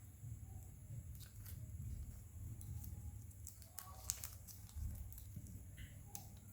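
Faint scattered clicks and taps of small parts and tools being handled during phone repair work, over a low rumble. The sharpest click comes about four seconds in.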